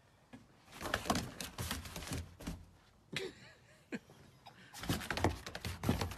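A dog's paws thumping and scrabbling on wooden deck boards as it bounces and lunges in excited play, in two runs of quick knocks: one from about a second in and another near the end.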